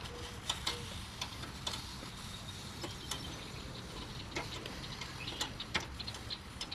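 Small metal tongs clicking and ticking irregularly against the wire grill rack and the hot dogs as they are turned on a portable charcoal grill.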